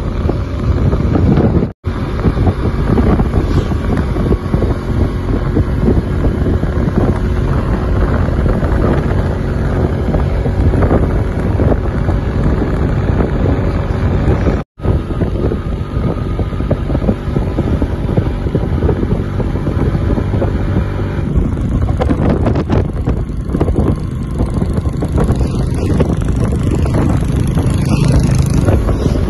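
Wind buffeting the microphone of a moving motorcycle, with the motorcycle's engine running steadily underneath. The sound cuts out sharply for an instant twice.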